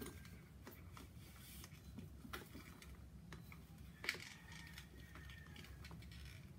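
Faint clicks and rustling as a handbag's striped strap and its metal fittings are handled, with a sharper click about four seconds in.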